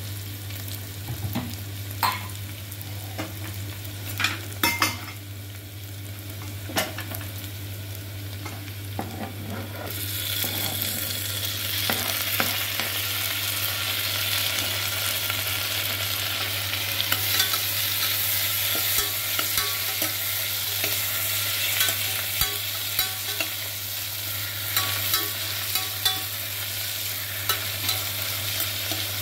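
Sliced onions frying in oil in a stainless steel pressure cooker, with a steel ladle knocking against the pot a few times. About ten seconds in, chopped tomatoes go into the hot oil and the sizzling turns much louder and brighter, with stirring running through it.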